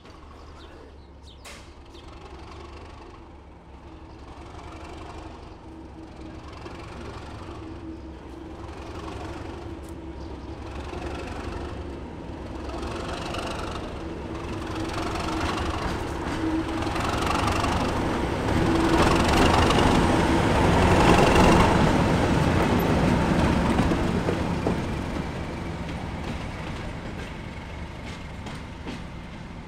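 Diesel locomotive running with a steady engine note, growing louder as it approaches and passes, loudest about two-thirds of the way through, then fading a little.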